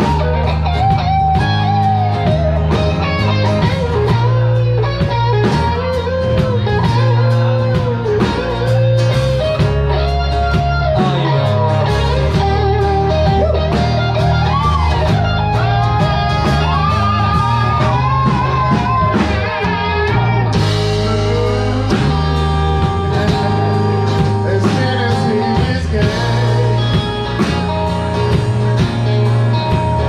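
Live band playing with electric guitars, bass and drums, a bending melodic lead line running over a steady low pulse. About twenty seconds in, the sound gets noticeably brighter.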